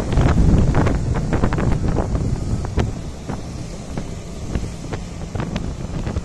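Wind rushing and buffeting over the microphone of a motorcycle riding at road speed, with the bike's engine running underneath. The buffeting is heaviest in the first second or so, then eases.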